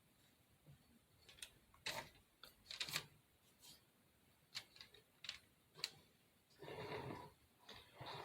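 Scattered small clicks and taps from handling little craft pieces, with a brief rustle near the end.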